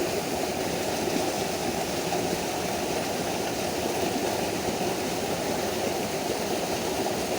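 Flowing stream water rushing steadily, an even, unbroken sound.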